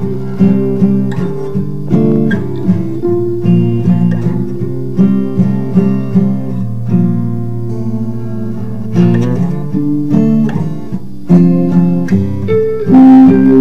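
Several overdubbed guitar parts playing an improvised instrumental jam, with notes plucked and strummed over one another.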